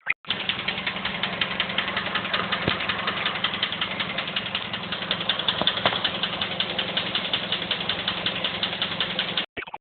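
Mazda 3 engine idling with a rapid, even clicking over its steady hum: the clicking noise that the owner is recording as a fault. The sound cuts out briefly near the end.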